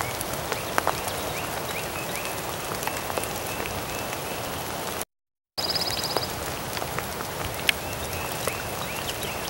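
Steady rain falling on grass and leaves, with raindrops ticking sharply close by. A faint, short, hooked chirp repeats in the background in two runs. The sound cuts out completely for about half a second near the middle.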